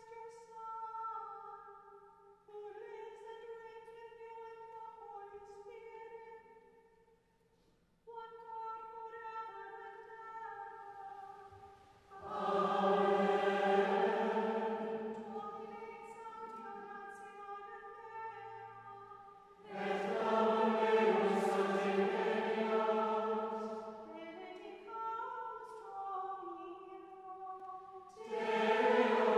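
Monastic choir chanting the Divine Office. Softer passages alternate with louder, fuller ones that come in about twelve seconds in, again near twenty seconds and near the end, with a brief pause about seven seconds in.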